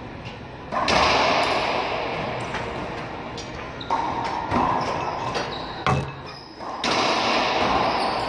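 Racquetball rally: the hollow rubber ball is struck by racquets and bounces off the court walls and floor. It gives four sharp pops, each ringing on in the enclosed court.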